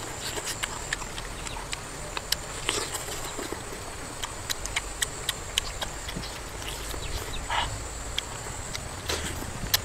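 Close-up chewing and lip-smacking of someone eating cooked snake meat: irregular sharp mouth clicks and smacks, over a steady high whine.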